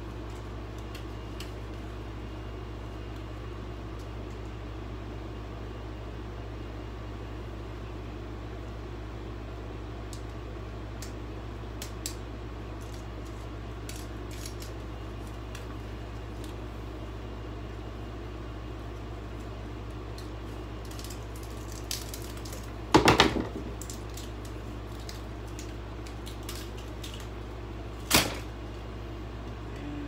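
A steady low electrical hum from a running appliance. A quick cluster of loud, sharp knocks comes about three-quarters of the way through, and one more loud knock comes shortly before the end.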